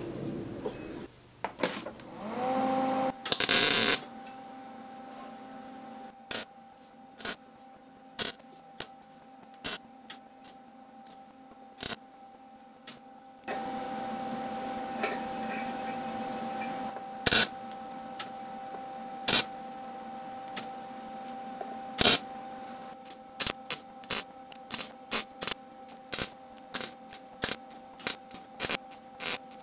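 MIG welder humming, with a short burst of welding about three seconds in and then a string of brief tack welds filling small pits in steel plate, about one a second at first and coming faster near the end.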